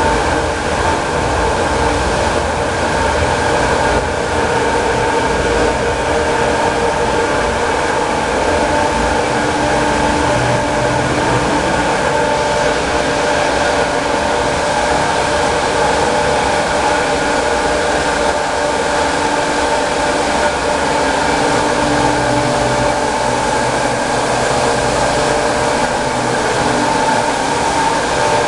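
Small 5 kW water turbine and generator set running steadily: a loud, even machine hum with several steady whining tones over the rush and splash of water.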